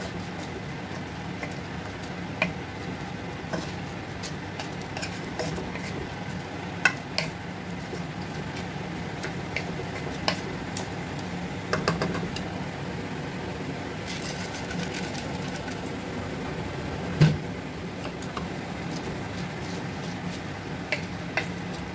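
Wooden spatula stirring and scraping raw rice and chicken in a pot, with scattered knocks of the spatula against the pot; the loudest knock comes about 17 seconds in. A steady low hum runs underneath.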